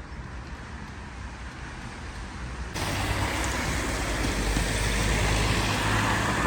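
Steady road-traffic noise that suddenly gets much louder and fuller a little under three seconds in.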